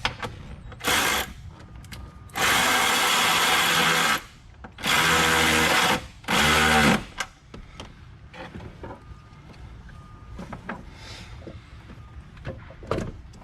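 Cordless drill/driver running a 10mm nut down tight: four bursts of the motor, a short one, then a longer run of nearly two seconds and two shorter ones, each winding down in pitch as it stops. A few light clicks and handling sounds follow.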